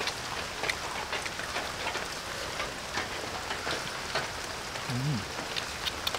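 Steady rain falling, an even hiss with scattered sharp drips. About five seconds in there is a brief low vocal sound from a man.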